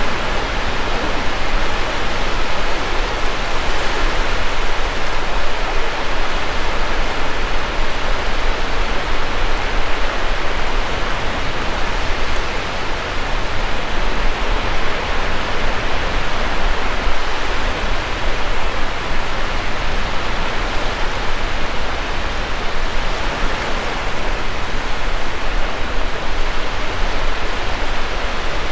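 Steady wind rushing over the microphone, with a constant low rumble, mixed with the wash of surf breaking on the beach.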